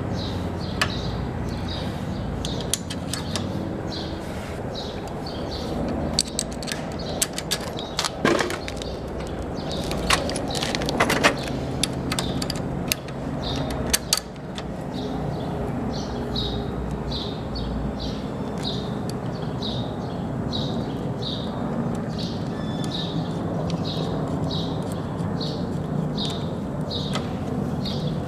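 Light metal clicks and clinks of aircraft brake caliper parts and bolts being handled and fitted onto the wheel axle, mostly in a cluster between about 6 and 14 seconds in, over a steady low hum.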